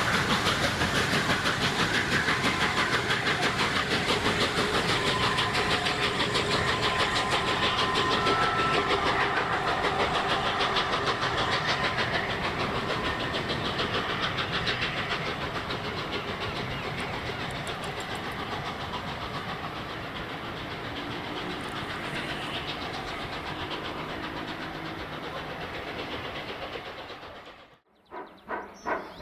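LNER A4 Pacific 60007 Sir Nigel Gresley, a three-cylinder steam locomotive, working a train past with rapid exhaust beats and rail noise, slowly fading as it draws away. Near the end the sound cuts off abruptly, and another steam engine's slower, evenly spaced exhaust beats start.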